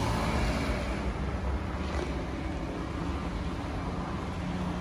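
Steady low rumble of street traffic and city hum.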